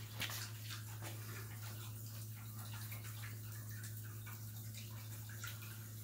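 Water sheeting down the glass panel of a water-wall fountain and splashing onto the pebble bed of its basin: a steady trickling and splashing, with a steady low hum underneath.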